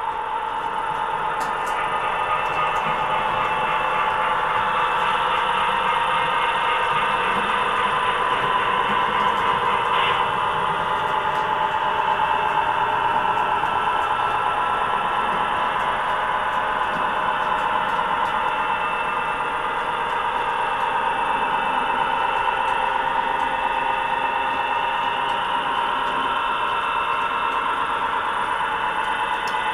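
HO scale model EMD F3A diesel locomotive running with a train of hopper cars. Its DCC sound gives a steady diesel engine drone along with the noise of the train rolling on the track.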